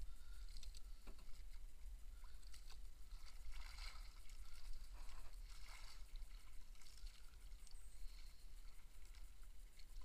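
Water lapping and sloshing softly against the hull and outriggers of a small outrigger fishing boat, with a few louder swishes in the middle and a steady low rumble underneath.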